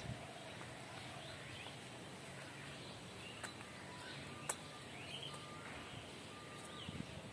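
Quiet outdoor ambience with birds chirping on and off over a steady low background rumble, and a couple of sharp taps midway.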